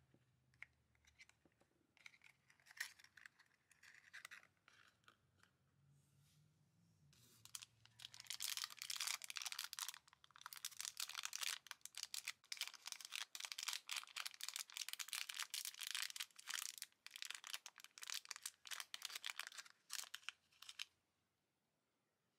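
Crinkling and tearing of a small plastic packaging bag being opened by hand, dense and continuous from about a third of the way in until it stops near the end. Before that, a few light clicks and rustles from handling a tiny cardboard box.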